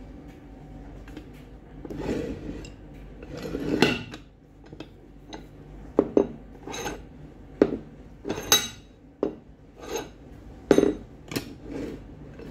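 Cast-iron Paramo bench vice's movable jaw slid in and out by hand: a couple of scraping metal slides, then a run of sharp, irregular metallic clunks.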